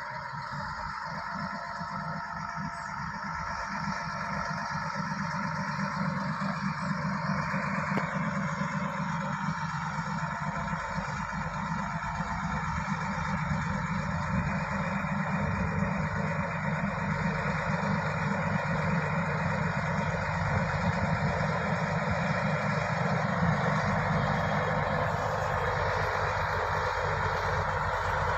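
Shantui SD16 bulldozer's diesel engine running steadily with mechanical noise, growing louder over the first several seconds and then holding level.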